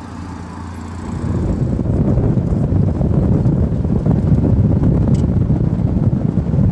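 Supercharged Toyota Land Cruiser FZJ80's straight-six engine running steadily as the truck drives past on a dirt track. About a second in it gives way to loud wind buffeting on the microphone, mixed with engine and tyre noise from the moving truck.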